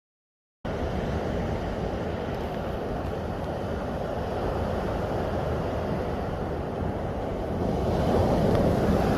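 Sea waves surging and washing, mixed with wind on the microphone. The sound cuts in abruptly about half a second in and swells louder near the end.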